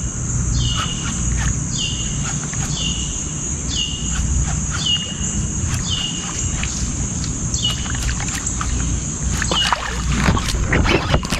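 A bird calling over and over, a short downslurred note about once a second, over a steady high-pitched hum. A few sharp clicks and knocks come near the end.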